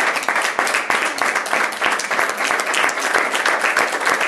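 An audience applauding: many hands clapping at once, dense and steady.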